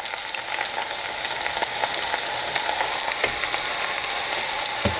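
Steady sizzle with scattered light crackles from a hot pan of rice and oil-tempered onions on a low flame as thick yogurt is poured in. A single dull knock just before the end.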